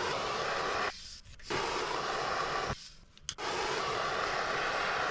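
Cordless impact wrench run in three bursts with short pauses between them, hammering at a very tight fastener on a wheel hub.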